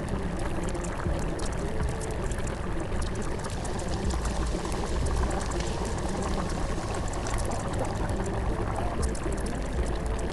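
Steady rush of running, splashing water with a deep low rumble underneath.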